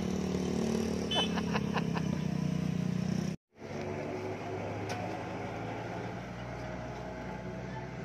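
Engine noise with a motor scooter passing. After a sudden cut about three and a half seconds in, the steady engine drone of a Sakai pneumatic-tyred road roller as it drives over the fresh asphalt.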